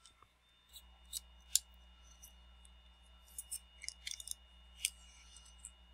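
Light, scattered clicks and taps of small parts being handled as an iPad's logic board is fitted back into its metal housing, with a quick run of clicks a little past the middle. A faint steady electrical hum and thin high whine sit underneath.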